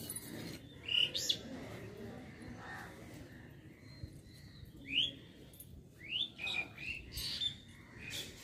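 Birds chirping: short rising calls about a second in, then a cluster of them between about five and seven seconds in.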